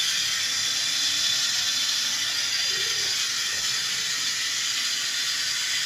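Fill valve of a Western Pottery Aris toilet tank hissing steadily as water refills the tank.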